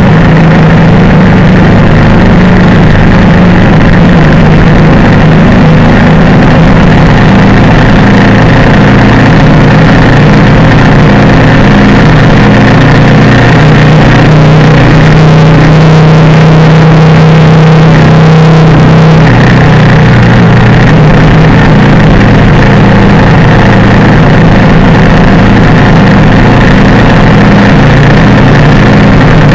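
Motorcycle engine running steadily, heard loud from on board with wind and road noise. Around the middle another motorcycle rides close alongside, adding a steady engine note for a few seconds.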